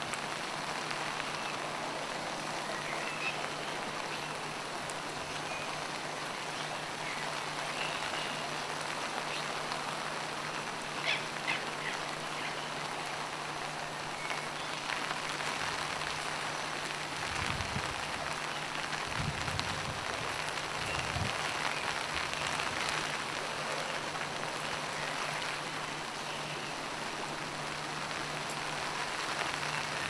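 Steady rain falling, an even hiss, with a low steady hum underneath and a few brief knocks and low thumps about halfway through.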